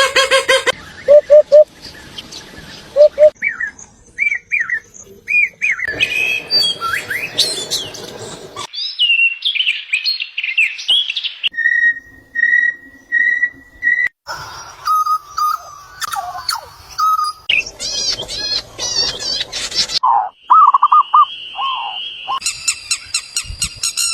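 A run of different birds calling and singing, chirps, whistles and trills, spliced together as short clips that change abruptly every two to three seconds.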